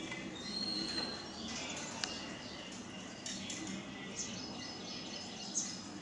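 Outdoor background noise with scattered short high bird chirps, including a brief clear high note about a second in.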